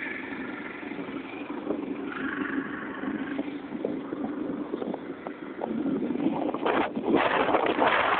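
Motorcycle engine running while the bike rides along a road, with wind noise on the microphone growing louder near the end.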